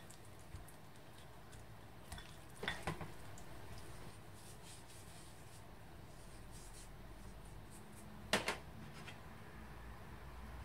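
Quiet kitchen handling sounds: a few light knocks about three seconds in and one sharper click a little past eight seconds, from a silicone spatula and a small dish against a glass mixing bowl, over faint room tone.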